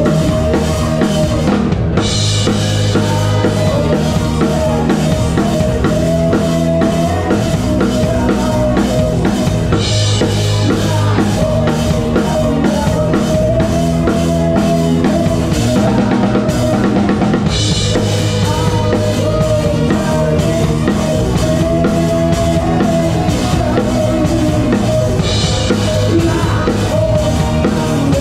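Live band cover with the drum kit close up and loudest: a steady beat of kick drum and snare under bass and a sustained melody line. Bright cymbal crashes come about every eight seconds, marking the phrases.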